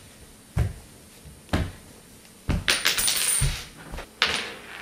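Knocks of footsteps on a hardwood floor about a second apart, then about a second of light clattering and clinking knocks, with one more sharp knock near the end.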